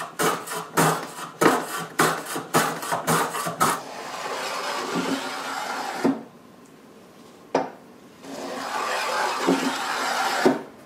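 Block plane with a freshly sharpened blade cutting wood: a run of quick short strokes, about two a second, then two long, steady strokes with a single click between them.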